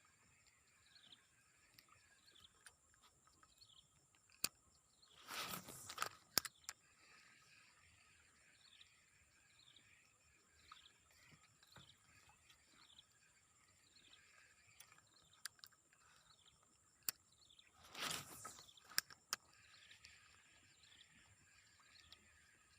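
Faint outdoor ambience: a steady high insect drone with short chirping calls repeating throughout. Two brief rustling noises with sharp clicks come about five seconds in and again near eighteen seconds.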